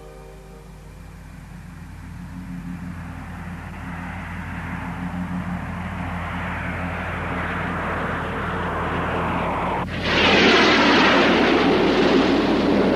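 Cartoon spaceship sound effect: a steady low engine hum under a rushing noise that swells gradually, then a sudden loud blast of rocket thrust about ten seconds in.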